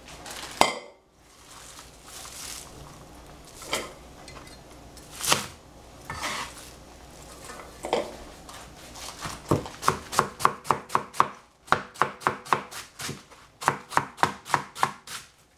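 Kitchen knife chopping on a cutting board: a few separate chops, then, about halfway through, two quick runs of chopping at about five strokes a second.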